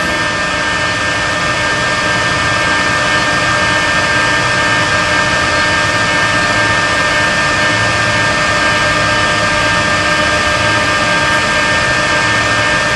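Acer E-lathe 17SeriesG engine lathe running with its spindle turning at a constant 876 rpm: a steady mechanical whine made of several level tones that does not change.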